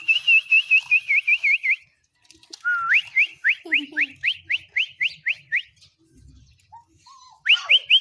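Quick runs of high, upward-gliding whistled chirps, about five a second, in three runs with short gaps between them.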